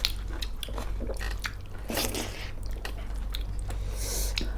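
A person chewing food close to the microphone, with wet crunchy bites and many small mouth clicks. There are two short hisses, about two seconds in and near the end.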